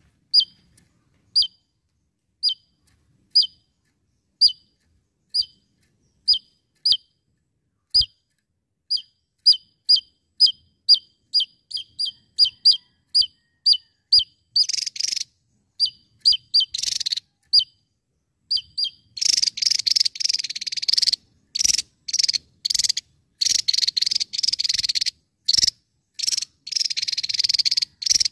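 Javan tesia singing: sharp single high notes, about one a second and gradually quickening, then from about two-thirds through a fast, dense chattering trill in long bursts with short breaks.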